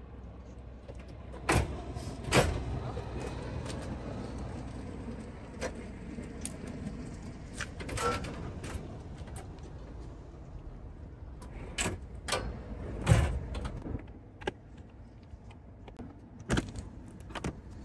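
Camper van's slide-out stove drawer and side compartment hatch being packed away: a string of separate metal clunks and knocks as the wok is lifted off and the drawer is slid in and latched, the loudest knock about three-quarters of the way through. A steady low hum runs underneath.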